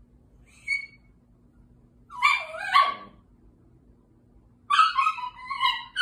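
A Chihuahua 'talking' to invite another dog to play: one short high yip about a second in, a longer whiny call that bends up and down in pitch and drops away around two to three seconds in, then a quick run of short whiny yips near the end.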